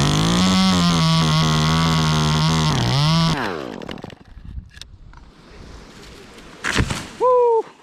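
Chainsaw revved up to full throttle, held there for about three seconds, then let back down and cut off. A loud thump follows about seven seconds in.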